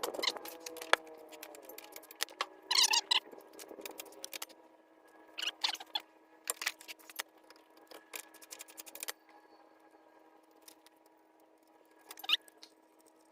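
Hand tools working on a pickup's wheel hub: short runs of ratchet clicking and light metal clinks, with pauses between, as the hub assembly bolts are worked loose.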